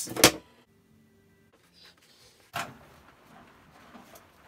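A single sharp thump a little past halfway, followed by a few faint knocks and handling noises in an otherwise quiet room.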